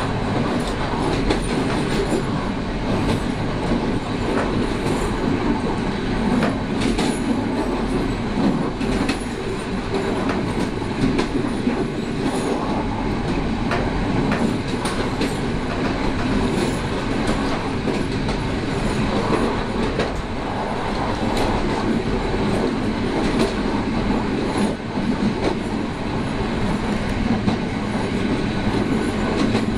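SU42 diesel locomotive running at speed, heard from inside the cab: a steady engine and running-gear drone, with the wheels clicking over rail joints now and then.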